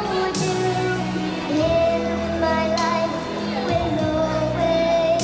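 A young girl singing long held notes over backing music with bass and occasional cymbal crashes.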